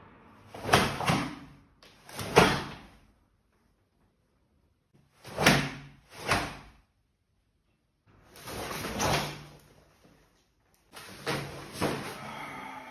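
A karate gi snapping and swishing as a karateka drives his arms into guard positions. The sounds come as a series of short, sharp bursts, mostly in quick pairs, with one longer rustling swish in the middle.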